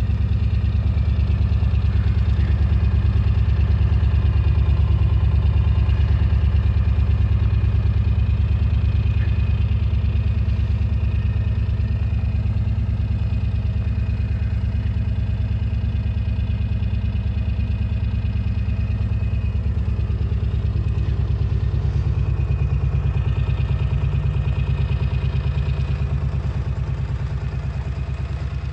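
Ford 7.3 L PowerStroke V8 turbodiesel, fitted with 205/80 hybrid injectors, idling steadily while still cold after a −13 °C start. It grows slightly fainter near the end.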